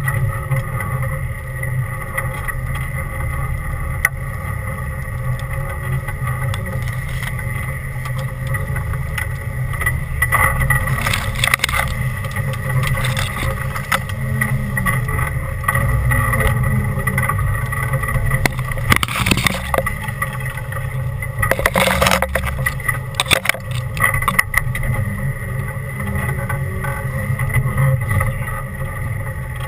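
An off-road 4x4's engine running low and steady as it crawls along a rutted dirt trail, heard from inside the doorless cab, with a thin steady whine over the rumble. A few short, louder noisy clatters break in about a third of the way through and again around two-thirds of the way.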